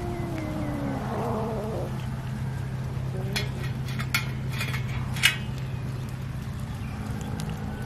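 Cats mewing, several overlapping gliding calls in the first two seconds. A few sharp clicks follow around the middle, over a steady low hum.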